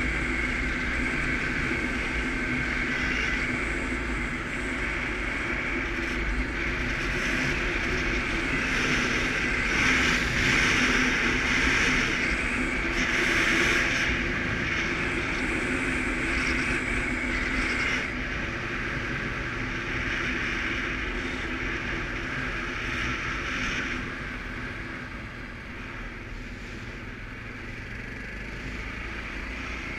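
Suzuki KingQuad ATV's single-cylinder engine running under way, with rushing air. The engine pulls harder through the middle and eases off for a while near the end.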